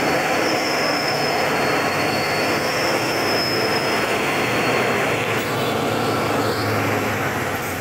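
Hino 500 dump truck's diesel engine pulling hard up a steep climb at close range: a loud, steady, dense rumble with a thin high whine running over it.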